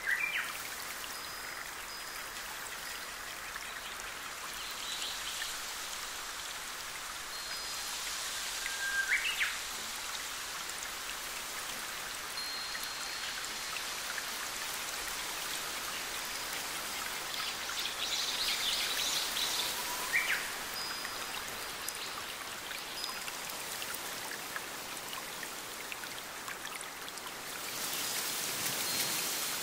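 Steady rushing and splashing water of a small forest stream and cascade, growing louder near the end. A few short bird calls cut through about 9 and 20 seconds in.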